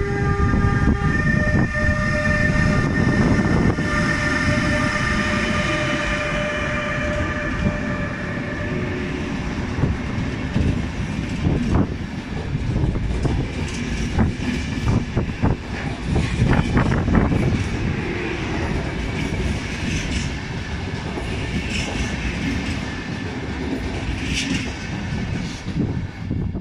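Bombardier Traxx F140 MS2e electric locomotive pulling a passenger train away, its traction equipment whining with several steady tones over the rumble in the first seconds. Then the coaches roll past, wheels clicking over rail joints.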